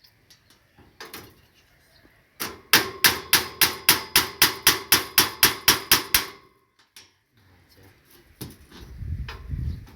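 Hammer striking a fence: a single blow, then a fast run of about fifteen ringing blows at about four a second. A low rumbling noise follows near the end.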